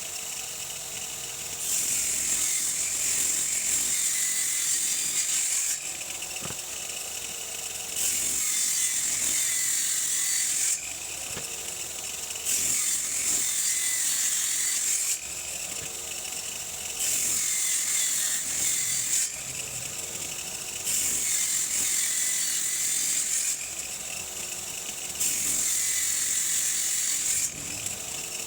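Power saw running and cutting through wood six times in a row. Each cut lasts two to four seconds, louder and hissier, with the pitch dipping under load and rising again as the blade comes free; between cuts the saw runs freely.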